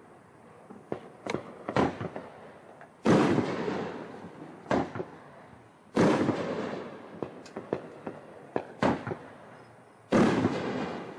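Supreme Fireworks B-52 Super Bomber, a 500-gram nine-shot fireworks cake, firing: three loud booms about three seconds apart, each trailing off over a couple of seconds, with several shorter sharp pops in between.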